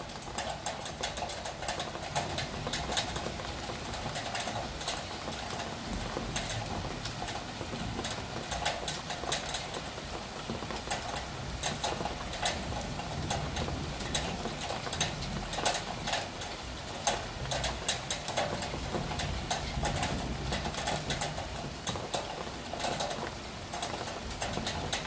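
Heavy rain ticking on a fabric sun awning: many irregular taps of raindrops over a steady hiss of rainfall.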